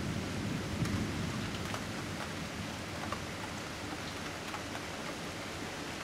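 Steady rain during a thunderstorm, with scattered drop ticks. A low thunder rumble dies away over the first second or two.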